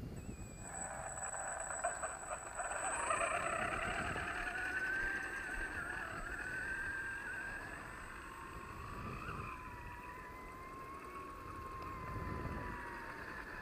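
A 3D-printed RC truggy driving off, its motor and printed plastic gears whining. The whine wavers in pitch with its speed, and a thin, steady, very high tone rides above it for the first two thirds.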